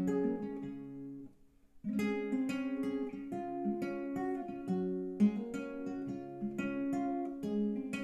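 Nylon-string classical guitar played solo and fingerpicked: a chord rings and dies away, and after a short gap about a second and a half in, a picked line of single notes over a bass resumes at several notes a second.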